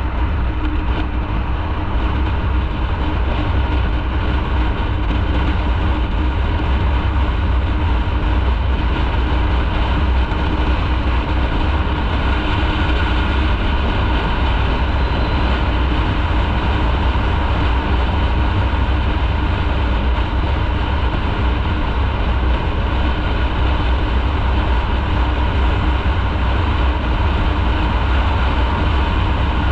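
Motorcycle riding along at a steady pace: engine and road noise run loud and even, with a strong low rumble underneath.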